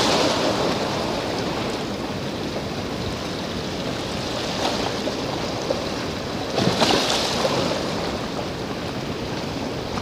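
Sea waves washing against the shore: a steady wash of surf, with a louder surge of breaking water about seven seconds in.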